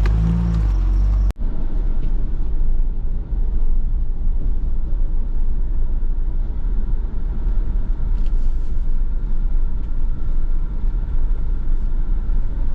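4x4 vehicle running and driving over a rough dirt trail, a steady low rumble of engine and drivetrain. The sound drops out for an instant about a second in, then the rumble carries on.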